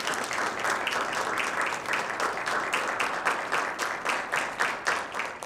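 Audience applauding, the clapping thinning to a few scattered claps near the end.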